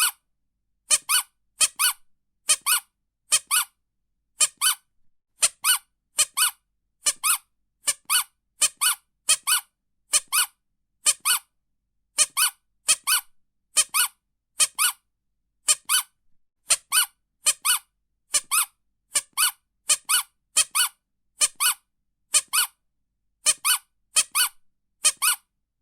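Rubber squeaky toy squeezed over and over, one short high squeak per squeeze with silence between, about one or two squeaks a second in an uneven rhythm.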